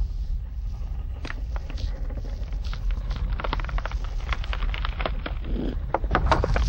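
A low, steady wind-like rumble over a stony landscape, with many sharp clicks and crackles of small stones clattering. The clicks grow denser from about halfway through and are loudest near the end.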